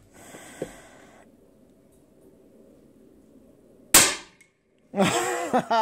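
Steyr LG110 PCP air rifle firing a single shot about four seconds in: one sharp crack that dies away quickly.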